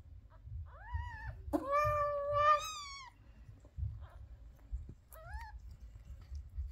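Cat mewing: a short rising-and-falling cry about a second in, a longer, louder cry of two overlapping calls just after, and a brief rising cry near the end.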